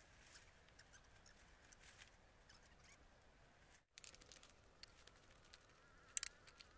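Quiet outdoor ambience with faint scattered ticks and crackles, a louder crackle a little after six seconds, and an insect buzzing faintly near the end.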